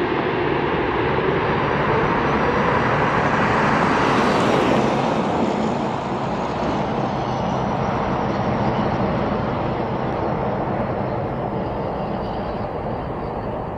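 Boeing 747-8 freighter's four GEnx jet engines at high power as the airliner passes low and climbs away. The steady jet noise swells to a peak about four to five seconds in, drops a little, then slowly fades.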